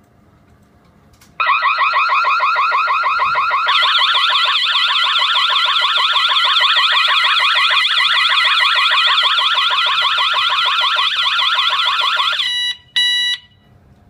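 Home burglar-alarm siren going off in a loud, fast warble, set off by a wireless door magnet sensor being opened while the system is armed; a second, higher warble joins about two seconds in. Near the end it cuts off suddenly as the system is disarmed, followed by two short beeps.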